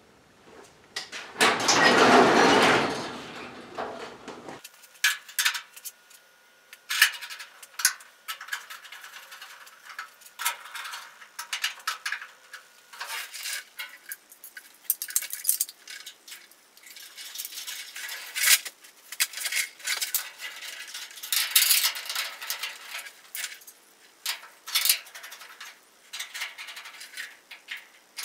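Irregular light metallic clinks and clicks of small parts being handled while a pickup's tail light housing and lens are fitted by hand. A louder rushing noise lasts about three seconds near the start.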